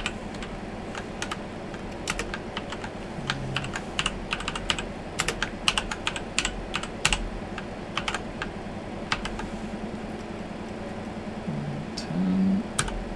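Typing on a computer keyboard: irregular key clicks as a line of text is typed out. A short low hum sounds briefly near the end.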